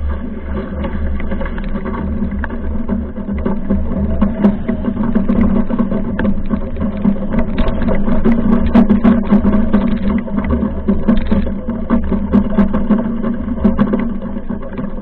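Mach2 foiling Moth sailing fast in strong wind: wind gusting on the microphone and water rushing past, with a steady low hum and scattered clicks and knocks throughout.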